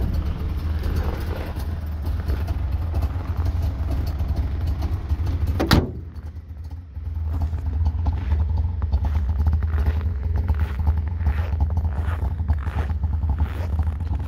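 Wartburg 353W's three-cylinder two-stroke engine idling steadily just after a cold start at −17 °C. A single sharp thump comes about six seconds in.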